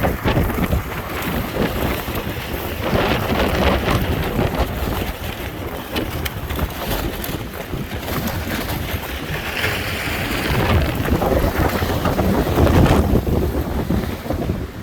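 Strong gusting wind buffeting the microphone, a loud rumbling rush that swells and eases, strongest just before the end.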